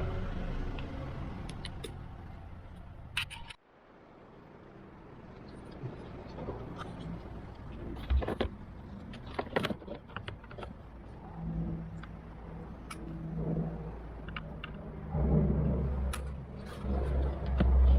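Scattered clicks and knocks of parts and tools being handled while a car door is reassembled, over a low rumble that cuts out abruptly a few seconds in and builds again near the end.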